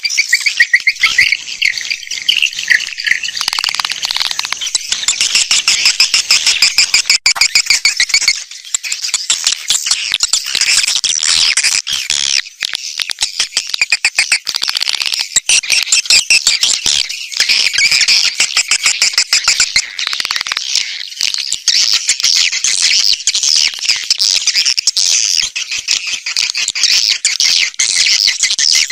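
A dense, continuous chorus of swiftlet chirps and twitters, high-pitched and rapid. It is a swiftlet lure call, the track played from speakers on swiftlet houses to draw the birds in to nest.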